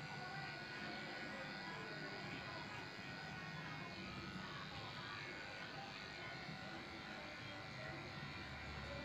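Electric pet grooming clipper buzzing steadily as it trims a shih tzu's head and face fur.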